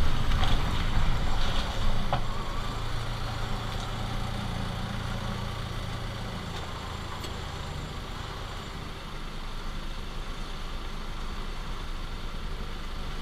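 Renault Duster's engine running steadily with road or cabin noise, with a single sharp knock about two seconds in and a fainter click later.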